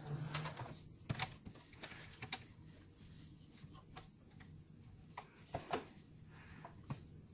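Electric home sewing machine with cotton fabric being fed under the needle: a brief low hum at the start, then scattered faint clicks and taps as the fabric is worked under the presser foot.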